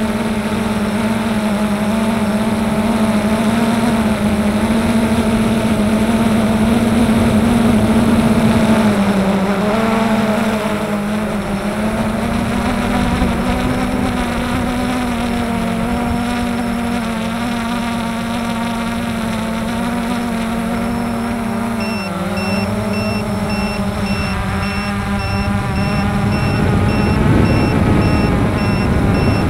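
Remote-controlled aircraft's motor and propeller humming steadily at one pitch, with the pitch dipping briefly twice as the throttle eases. In the last third a repeated high beep starts.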